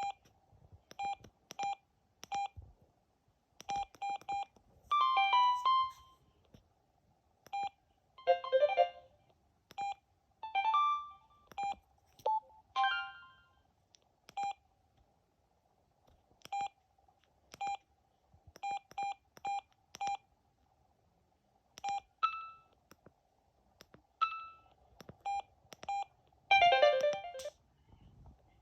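Samsung SGH-M110 mobile phone beeping: many short, same-pitched keypad tones at irregular intervals, as when keys are pressed to move through menus. Several brief electronic jingles of a few notes each sound between the beeps, the longest near the end.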